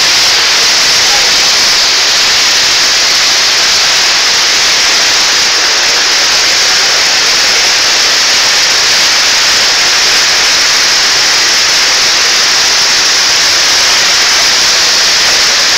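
Floodwater of a river in spate rushing past, heard as a loud, even hiss that never breaks.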